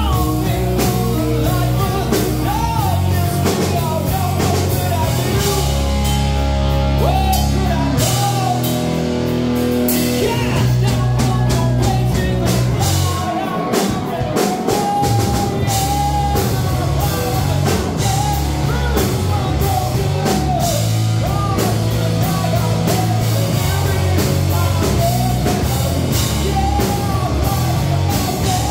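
Live rock band playing loud: electric bass, electric guitar and a drum kit with a male singer's vocals over them.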